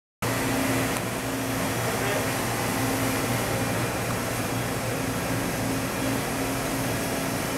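Steady hum and whir of running machinery, with a low drone and a fainter higher tone that comes and goes.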